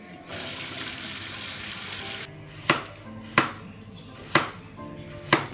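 Kitchen knife slicing a carrot on a plastic cutting board: four sharp knocks about a second apart in the second half. Before them, a steady hiss lasts about two seconds.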